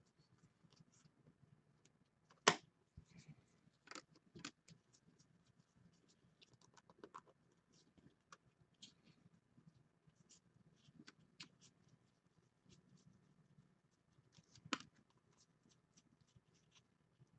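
Football trading cards handled and flipped through by hand, with foil pack wrappers crinkling: soft, scattered rustles and light clicks, and two sharper clicks, one about two and a half seconds in and one near the end.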